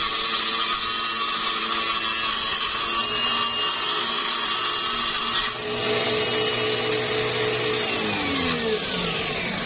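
Homemade table saw driven by a DC 895 motor, its blade whining steadily while cutting a piece of MDF. Near the end the motor is switched off and winds down, the whine falling in pitch.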